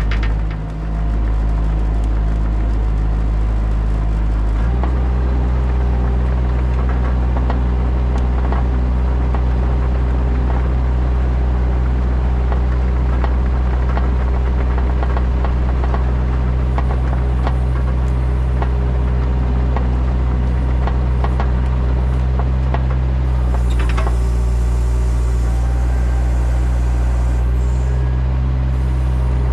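An engine running steadily at constant speed, its note shifting once about five seconds in.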